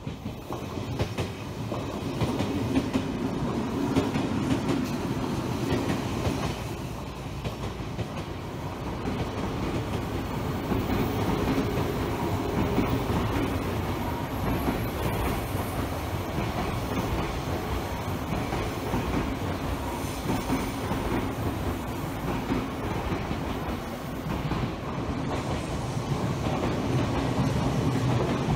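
Electric commuter trains passing close by along the line, one after another, with the steady sound of wheels running on the rails.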